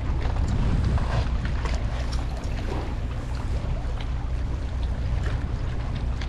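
Wind buffeting the microphone over water splashing and lapping against a small boat's hull, with a steady low rumble underneath.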